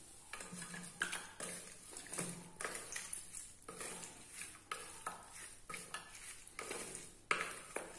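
Wooden spatula stirring raw chicken pieces and spice powder in a stainless steel bowl: a run of short scraping strokes about twice a second, with sharper knocks against the bowl about a second in and near the end.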